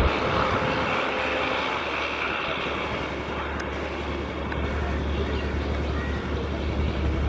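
Passenger train running past at high speed: a steady rush and rumble of wheels on the track, dipping slightly midway and swelling again near the end.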